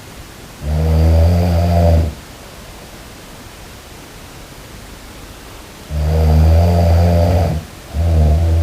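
A person snoring: two low snores, each about a second and a half long, with a third starting near the end, over a steady background hiss.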